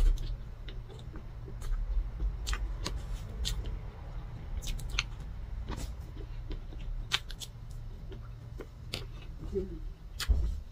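Close-miked eating sounds of chocolate layer cake with cream frosting: irregular wet mouth clicks and smacks while chewing, and a metal spoon scraping into the cake, over a low steady hum. A brief hummed 'mm' near the end.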